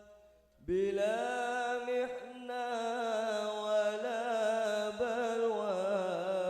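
A group of voices chanting a sholawat in long, held, wavering notes. After a brief pause for breath, the voices come back in under a second in.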